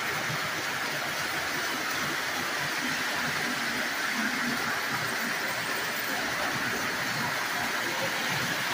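Several Lionel O-gauge toy trains running at once on three-rail track, including a 2006 Polar Express set: a steady whirring noise of their motors and wheels on the rails.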